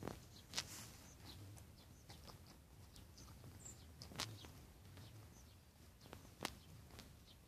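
Dog gnawing a bone: a few sharp, isolated cracks of teeth on bone spread over several seconds, against a faint quiet background.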